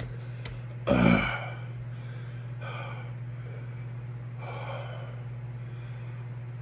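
A man gasping and breathing hard through the burn of superhot chili peppers: one loud gasp about a second in, then two softer breaths out near three and five seconds. A steady low hum runs underneath.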